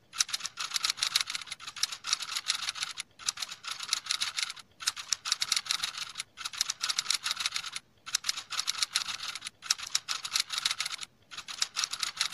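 Typing sound effect: rapid, continuous key clicks in runs broken by short pauses about every second and a half.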